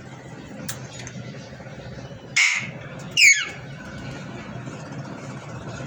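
Pet parrot giving two loud, harsh squawks a little under a second apart, the second sweeping down sharply in pitch, over a steady low background hum.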